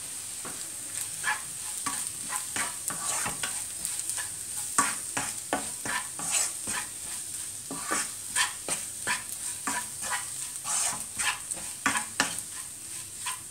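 Wooden spatula stirring sliced onions frying in coconut oil in a nonstick kadai, with the chilli powder just added: a steady sizzle with a scrape at each stroke, roughly two strokes a second.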